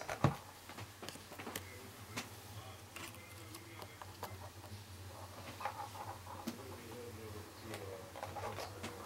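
Handling noise: scattered small clicks and taps over a faint steady low hum, with a sharper click right at the start.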